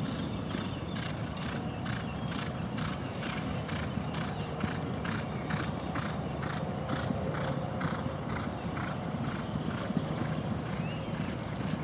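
Thoroughbred racehorses' hooves striking the track in a steady clop, about three beats a second, clearest in the middle stretch, over a low steady rumble.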